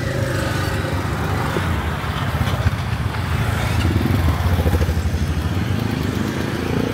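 Street traffic with motorbike engines running close by; an engine's pitch rises and falls partway through and climbs again near the end as it revs.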